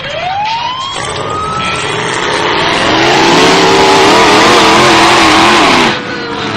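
Demolition derby car engines revving hard: one rises in pitch over the first two seconds, then several engines run loud with wavering revs, cutting off suddenly about six seconds in.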